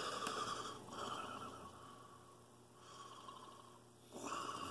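A man breathing heavily through a congested nose and mouth, a few slow, noisy breaths with some sniffing, from a severe head cold that leaves him unable to breathe freely.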